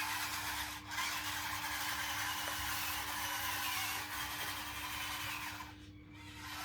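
Electric drive motors and gearboxes of a 1/16-scale RC bulldozer whining, the pitch sliding up and down as the speed changes. They stop briefly just before a second in and again near the end.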